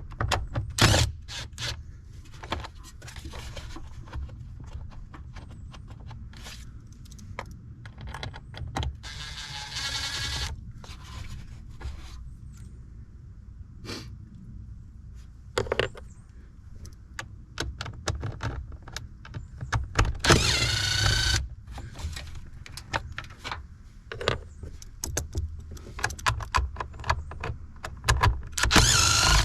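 Small cordless impact driver zipping out the 8mm bolts of the air filter housing. Its motor whine comes in three short runs, about a third of the way in, about two-thirds in and near the end. Metal clicks and clinks from the socket and loose bolts sound in between.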